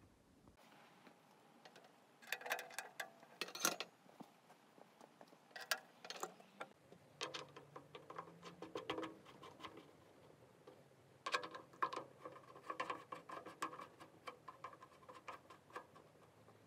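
Welding cable plugs being pushed and twisted into the front-panel sockets of a transformer arc welder: small plastic and metal clicks and rattles in several bursts, with cable handling.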